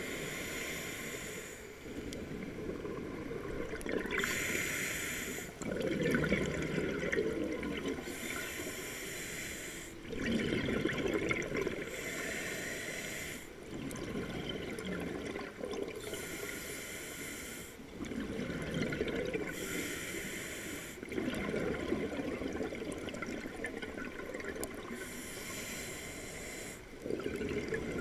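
A scuba diver breathing through a regulator underwater: a hissing inhale through the demand valve, then a bubbling exhale, repeating about every four seconds.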